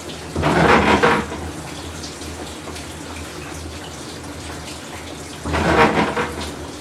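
Whirlpool Cabrio top-load washing machine, which has a bad bearing, churning its load during the wash: water sloshes in two loud surges about five seconds apart over a steady low hum.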